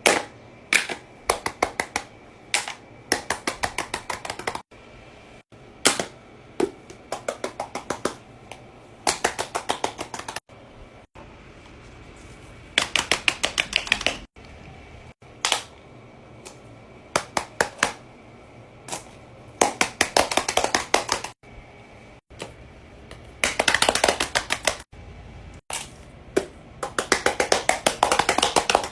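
Fidget toys clicking in quick runs of sharp, rapid clicks, each run a second or two long, with pauses between them and a few abrupt breaks.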